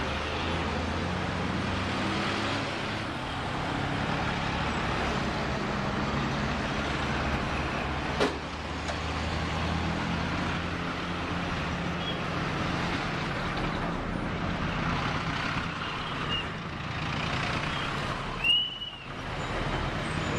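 Road traffic heard from inside a vehicle: heavy army trucks' engines running close by over steady road noise. A sharp click comes about eight seconds in, and a brief high squeak about two seconds before the end.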